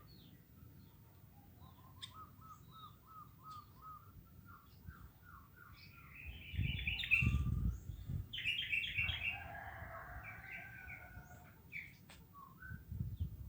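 Birds calling: a run of short repeated chirps over the first few seconds, then louder chattering calls in the middle, with scattered high chirps throughout. A low rumble sits under the loudest calls.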